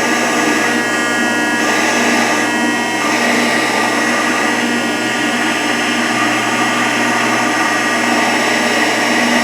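Hydraulic pump of a Rockford hydraulic planer running steadily, a dense hum and whine made of several steady tones. A few of the tones shift about a second and a half to three seconds in, as the pump's flow volume control lever is worked.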